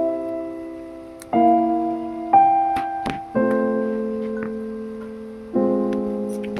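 Background music: soft piano chords, each struck and left to fade, with a new chord every one to two seconds.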